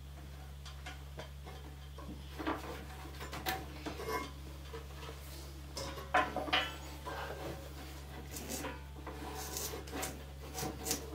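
Handling noise of an old sewing-machine drive belt being unhooked from the motor pulley and pulled up through the bench slot: scattered light knocks, taps and rubbing, the loudest knock about six seconds in, over a low steady hum.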